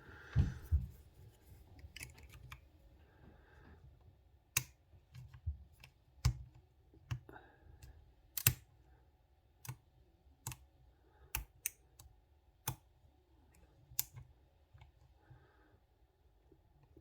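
Sharp metallic clicks at irregular intervals, about a dozen in all: a lock pick working the pin stack of a Viro chain link padlock, the pins clicking as they set, heading into a false set.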